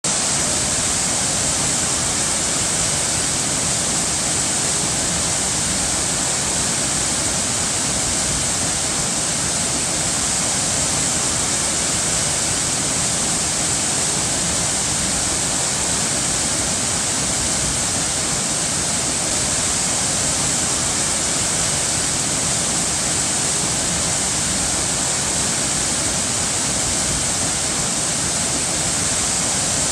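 Running water rushing steadily in an even, unbroken hiss.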